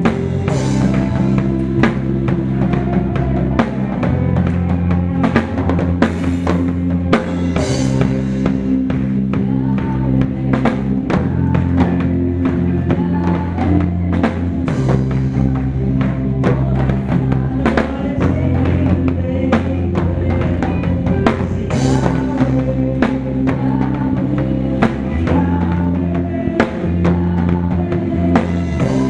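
Live band music led by a drum kit being played: kick and snare strokes over sustained low notes, with a few cymbal crashes along the way.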